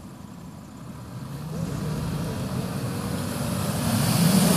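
Toyota Land Cruiser 100-series engine revving under load as the wheels churn through deep mud, building steadily louder to a peak near the end, with the hiss of mud and water spray rising with it.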